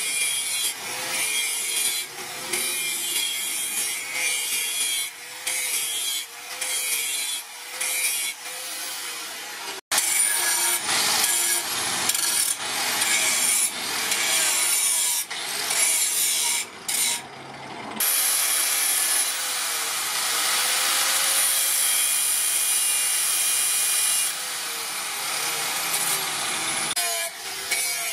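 Angle grinder with a sanding disc grinding a steel knife blade: a steady motor whine under a harsh, gritty grinding noise. The grinding drops away and comes back again and again as the disc is pressed on and lifted off the blade.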